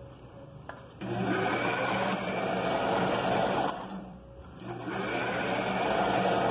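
Electric motor of a belt-driven kite-line winding machine running, spinning a can spool to wind kite line onto it. It starts about a second in as a steady hum, eases off briefly around four seconds, then runs up again.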